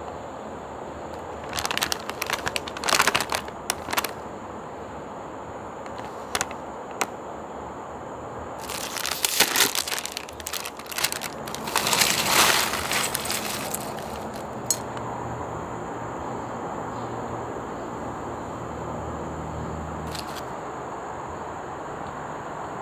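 Foil crisp bag of Lay's Magic Masala potato chips crinkling as it is handled and opened, in two spells of loud rustling, then chips rattling out of the bag onto a plate a little past the middle. A few single sharp clicks and crackles come in between.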